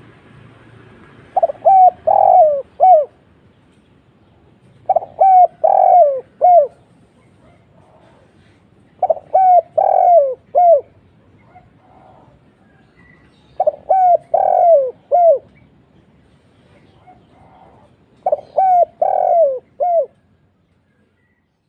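Spotted dove (tekukur) cooing: five phrases of several low, falling coo notes, about four seconds apart.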